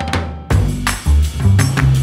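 Background music: after a short sweep, a drum kit and bass come in about half a second in and play a steady beat.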